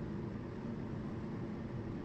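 Steady low background rumble and hiss of room noise, with no distinct events.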